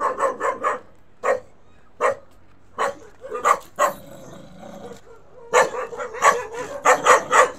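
Dog barking repeatedly at people walking past: a quick run of barks at the start, then single barks spaced apart, then another fast run from about two-thirds of the way through.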